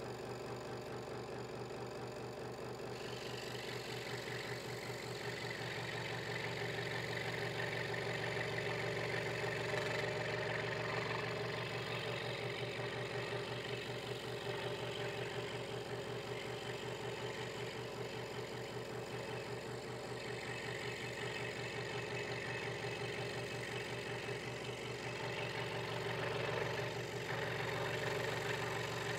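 Hegner Multicut 2S scroll saw running, its blade stroking rapidly up and down as it cuts a curved shape out of a wooden blank. A steady motor hum sits under the fast, even chatter of the blade, and the cutting noise swells and eases as the piece is fed and turned.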